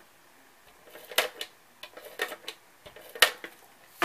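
Hands handling and pressing cardstock on a cutting mat: a few short, sharp taps and paper rustles, the loudest about three seconds in.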